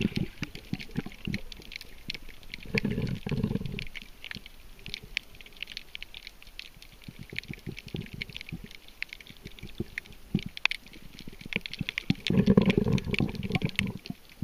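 Underwater sound picked up by a camera held below the surface: a continual crackle of sharp clicks, with spells of low rushing rumble about three seconds in and again near the end.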